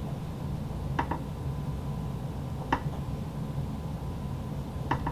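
Fine-tip permanent marker writing on a small paper label. There are a few light taps and clicks, about a second in, near the middle and at the end, over a steady low hum.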